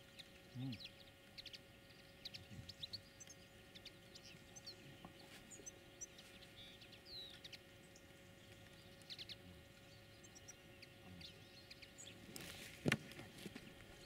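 Small birds call in short, high chirps and twitters throughout. About a second before the end, one loud sharp thump sounds as the folding bird-trapping clap net is sprung shut.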